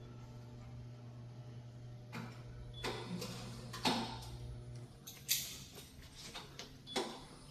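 Scattered clicks, knocks and rustles of equipment being handled, over a steady low hum that stops about five seconds in.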